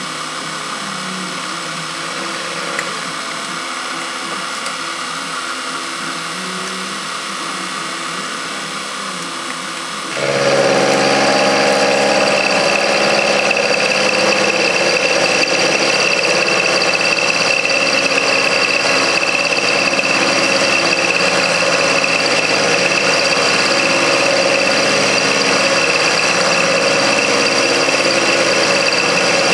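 Benchtop milling machine running, its end mill cutting a step into a metal block: a steady machining sound. About ten seconds in it abruptly gets louder and a high steady whine comes in.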